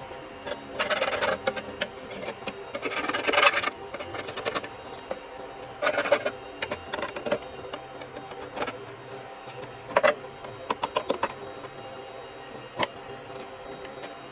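Plastic support material being snapped, scraped and pulled off a 3D-printed helmet: irregular bursts of crackling and scraping, with a sharp click near the end, over a steady hum.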